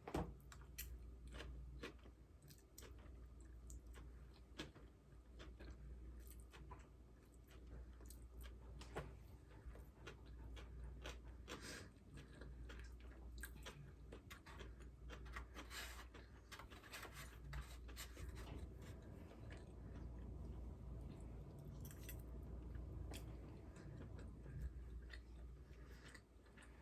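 A person chewing food faintly, with many small scattered mouth clicks and smacks.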